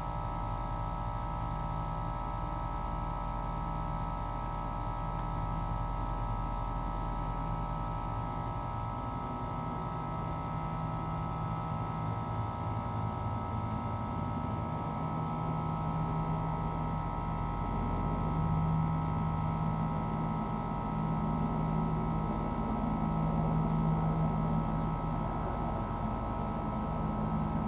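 Boeing AH-64 Apache helicopter flying at a distance: a steady droning hum with several fixed tones and a low rumble that grows louder over the second half, as the helicopter draws closer.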